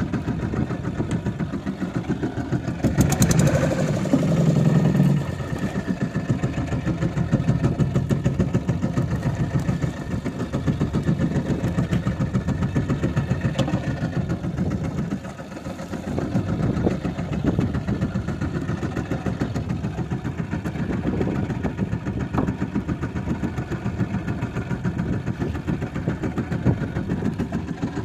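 Fishing boat's engine running steadily with a fast, even beat. It grows briefly louder a few seconds in and dips for a moment about halfway through.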